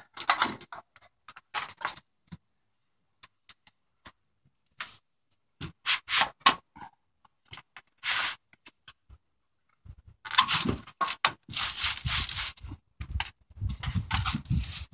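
A metal ice belt roofing panel scraping and rustling as it is slid up under asphalt shingles and fitted at the eave. Irregular scrapes, with a mostly quiet spell of a few seconds early on; the scraping grows longer and more continuous in the last few seconds.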